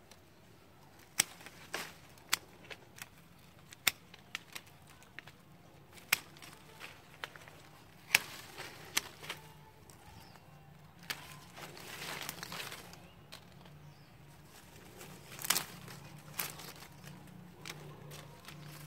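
Hand pruning shears snipping small tea-bush branches: a series of sharp snips at irregular intervals, with leaves rustling a little past the middle.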